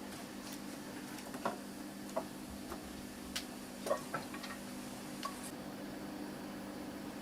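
Pan of sugar syrup with sliced ginger and Indian gooseberry cooking over low heat: scattered small clicks and pops at irregular intervals over a steady low hum.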